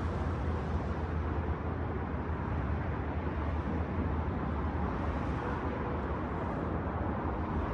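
Steady rumble and hiss of road traffic, even throughout, with no single vehicle passing out of it.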